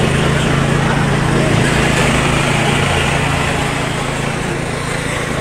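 A small engine running steadily at an even idle, making a low, unchanging hum over a steady background din.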